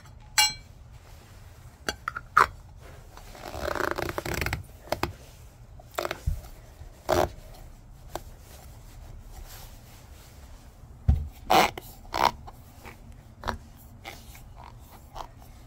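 Aluminium lid of a Lortone rubber rock-tumbler barrel being fitted and pressed down by hand: scattered clicks and knocks, with a scraping stretch about four seconds in.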